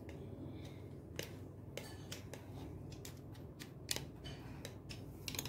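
Scattered light clicks and taps of kitchen utensils against glass bowls and jars, roughly one every second, over a steady low hum.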